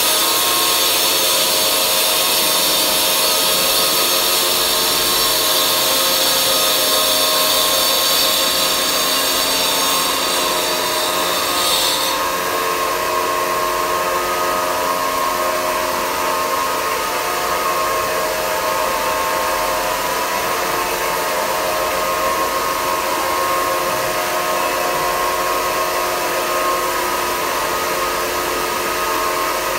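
Semi-automatic granite polishing machine running steadily, its motor whining while the rotating polishing head works over a wet black granite slab. The high hissing part of the noise cuts off abruptly about twelve seconds in, and the machine runs on.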